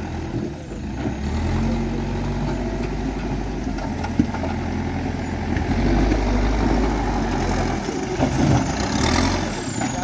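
Manitou backhoe loader's diesel engine running as the machine works, its pitch rising and falling a few times, with one sharp knock about four seconds in.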